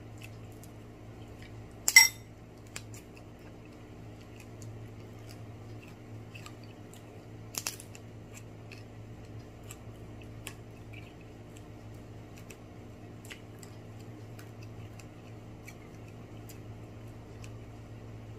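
Picking meat out of a fried lobster's shell: scattered small clicks and taps, with a sharp crack about two seconds in and a smaller one near eight seconds, over a steady low hum.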